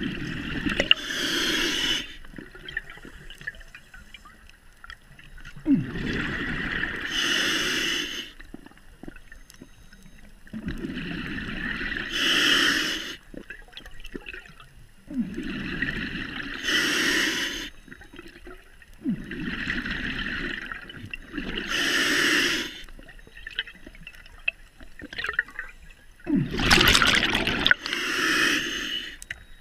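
Scuba diver breathing through a regulator underwater: a breath drawn through the regulator and a rush of exhaled bubbles, repeating about six times, once every four to five seconds.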